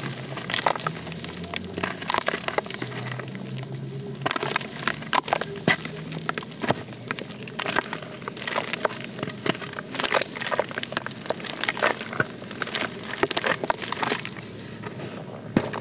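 Soaked blocks of soft white dirt being squeezed and broken apart by hand in a basin of water. Irregular wet crunching and crackling comes as pieces crumble off.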